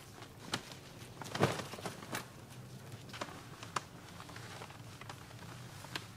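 Scattered rustling and clicking of a camouflage pop-up hunting ground blind being unfolded and pulled open, its fabric and frame handled by hand; the loudest rustle comes about a second and a half in.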